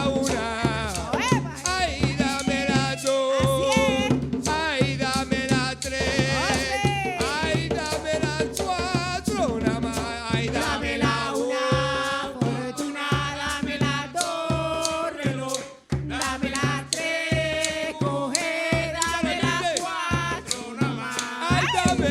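Afro-Colombian bullerengue music played by a traditional drum ensemble: hand drums keep a steady pulse with shaken percussion, under a wavering, bending lead melody.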